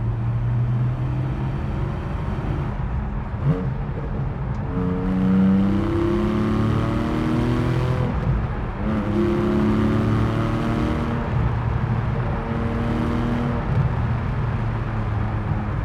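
Porsche 718 Cayman GTS's 4.0-litre naturally aspirated flat-six pulling hard through the gears of its six-speed manual. The engine note climbs, breaks at a shift about eight and a half seconds in, climbs again, and pulls once more near the end. A short knock sounds at about three and a half seconds.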